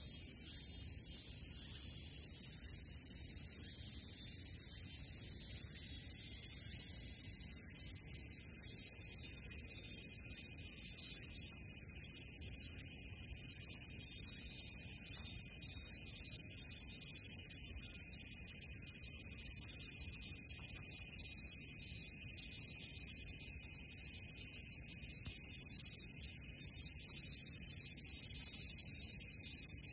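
Steady, high-pitched drone of insects, growing a little louder over the first several seconds.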